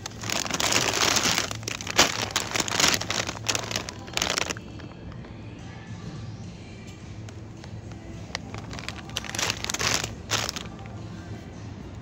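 Plastic bags of frozen chicken drumsticks crinkling as they are handled and lifted out, in two spells of rustling, the first longer, over soft background music.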